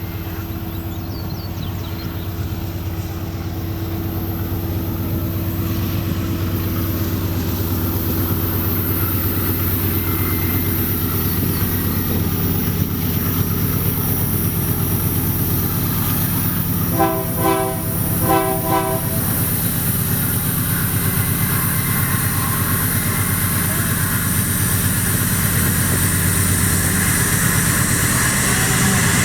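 Pair of GE diesel-electric locomotives (AC44i and ES44ACi) drawing near inside a railway tunnel, their engine drone echoing and growing steadily louder. Two short horn blasts sound about two-thirds of the way through.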